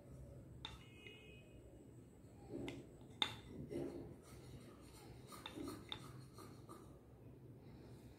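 Light clicks and soft knocks of wooden rings being picked up and set onto the pegs of a wooden number-stacking board, with one sharper click about three seconds in, over a low steady hum.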